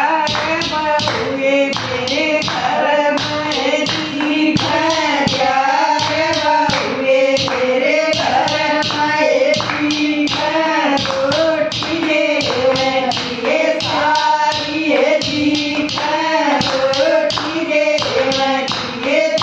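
A group of women singing a devotional bhajan together, keeping a steady beat with hand claps and taps about twice a second.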